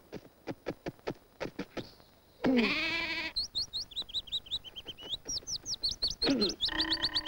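A run of quick clicks, then a sheep bleating once, a loud wavering call that falls in pitch. A bird then chirps rapidly in high, quick notes for several seconds, with a second bleat near the end.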